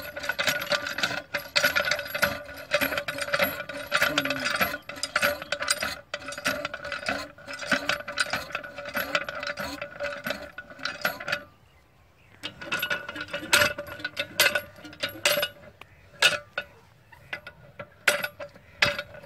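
Metal parts of a hand pump head clinking and rattling as it is worked by hand, a dense run of clicks over a steady ringing, thinning out about halfway through to scattered sharp knocks.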